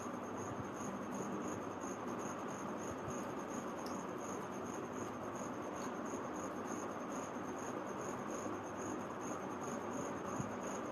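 Insect chirping steadily, a high pulse repeating about three or four times a second, over a steady background hiss.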